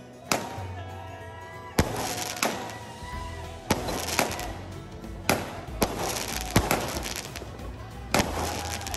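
Aerial fireworks bursting overhead: about ten sharp bangs, roughly one a second, over background music.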